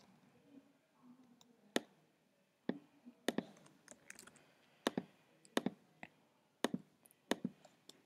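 Sharp clicks from a computer mouse and keyboard, about a dozen in all, mostly in close pairs, with near silence between them.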